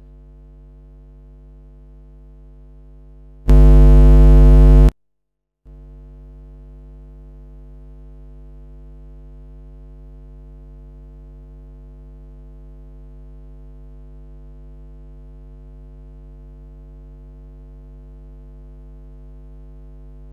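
Steady electrical buzz on the audio line, a mains hum. About three and a half seconds in it turns into a much louder blast of the same buzz for over a second, then cuts out briefly before the steady buzz comes back.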